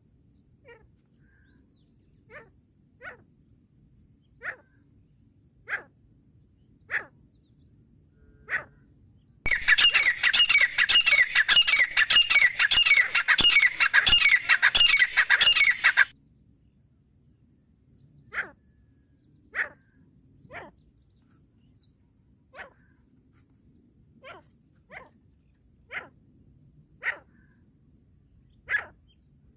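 Francolin (teetar) calling: short, sharp single notes about a second apart, broken about a third of the way in by a loud run of rapidly repeated notes lasting some six seconds.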